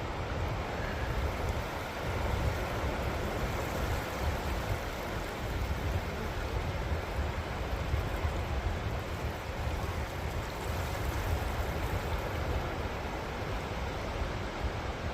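Sea waves washing onto the sand at the water's edge, a steady rushing, with wind buffeting the microphone as a gusty low rumble.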